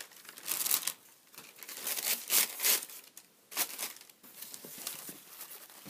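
Tissue paper in a shoe box rustling and crinkling in several short spells as it is pulled back and the shoes are lifted out.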